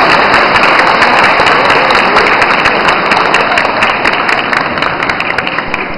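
Audience applauding, the clapping thinning out and dying away toward the end.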